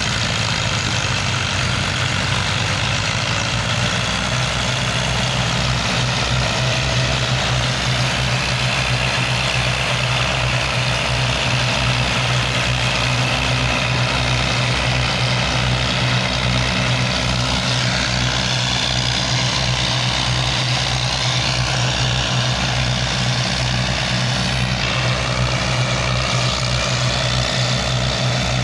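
Small diesel tractor engines running steadily under load, with a low, pulsing note, as several tractors hitched in a line haul a heavily loaded sugarcane trolley.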